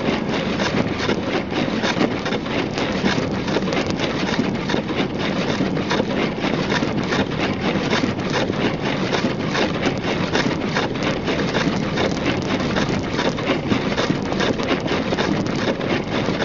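Steady road noise inside a moving car: tyres on a snow-covered road with the engine running underneath.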